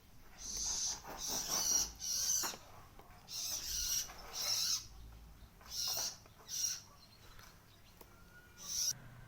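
Common iora (sirtu/cipoh) giving a series of about eight short, harsh calls with pauses between them.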